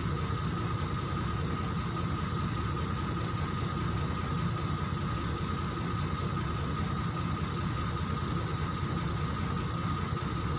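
Vehicle engine idling steadily: an even low rumble, with a faint steady high tone above it.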